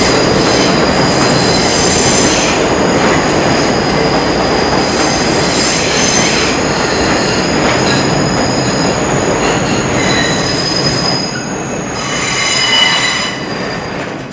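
New York City subway train pulling into the station and braking on the far track: loud running noise from wheels on rail, with several high squealing tones from the wheels and brakes. It quiets near the end as the train comes almost to a stop.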